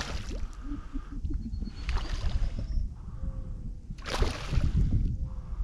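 Water sloshing and splashing around a kayak over a steady low rumble, with two brief louder splashes about two and four seconds in.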